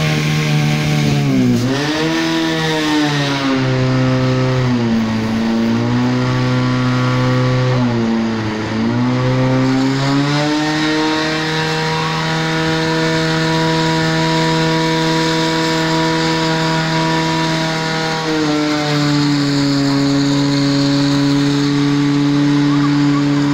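Portable fire pump's engine running at high revs while it pumps water out to the attack hoses. Its pitch dips and recovers twice in the first ten seconds, then holds steady and steps up a little near the end.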